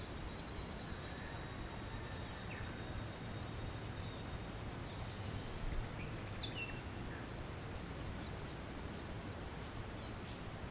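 Outdoor bush ambience: scattered short, high bird chirps and a few falling calls over a steady low rumble, with a faint thin high tone in the first few seconds and one brief low bump about halfway through.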